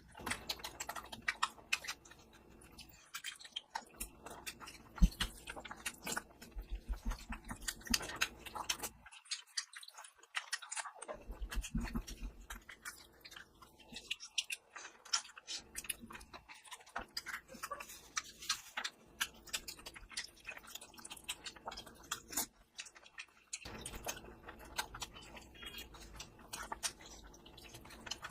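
Close-up eating sounds: wet chewing, lip smacks and clicks of mutton curry and rice, coming in irregular bursts with brief pauses.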